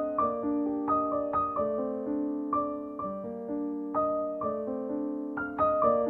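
Gentle background piano music: a slow melody of single struck notes, about two a second, over held lower chords.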